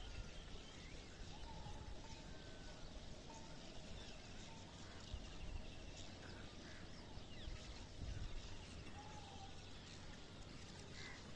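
Faint outdoor ambience: birds chirping and trilling now and then over a steady background hiss and low rumble.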